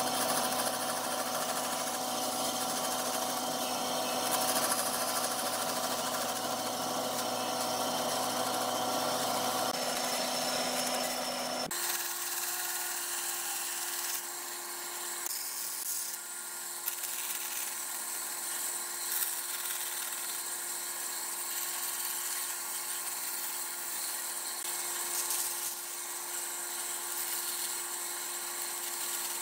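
Bandsaw running and cutting curves through a stack of thin wooden boards, a steady machine hum with the sound of the blade in the wood. The pitch of the hum changes abruptly about twelve seconds in, then holds steady again.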